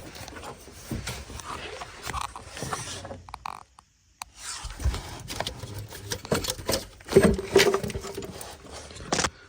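Irregular clicks, knocks and scrapes of hands working loose the connectors and pipes under a BMW N55 intake manifold, with a short pause about three and a half seconds in and a louder creaking scrape about seven seconds in.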